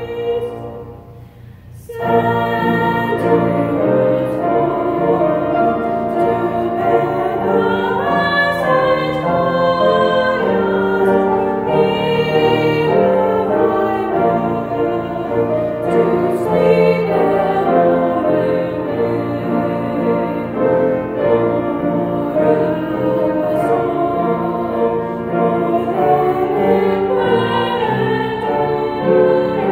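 Two female voices singing a sacred song from hymnals with keyboard accompaniment, which resume after a short pause about a second in.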